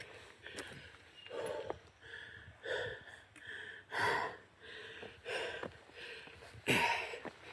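A hiker breathing hard and fast, in and out, near the top of a steep climb: puffing, winded breaths about once a second, with a few light clicks among them.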